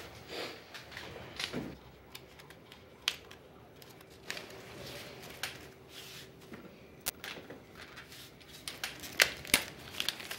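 Scattered light clicks and short rustles of paper and small objects being handled, becoming more frequent near the end.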